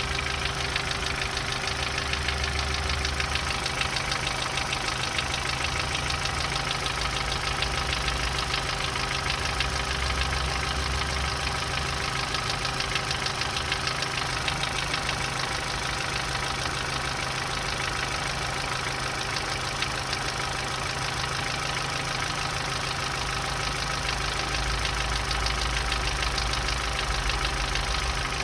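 Opel Z14XEP 1.4-litre four-cylinder petrol engine idling steadily with a fast, even knocking tick over the running engine. The knock is the fault the engine is being shown for.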